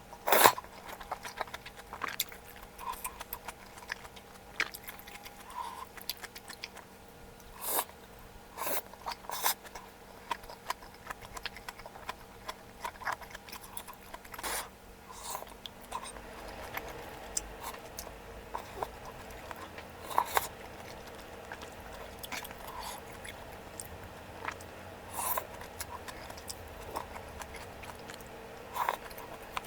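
A person eating malatang: chewing, with scattered short sharp clicks and taps throughout.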